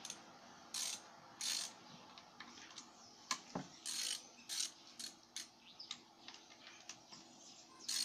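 Ratchet wrench clicking in short bursts, a handful of separate backstrokes with single clicks between, as it undoes the camshaft bearing cap bolts on a Mazda WL-T cylinder head.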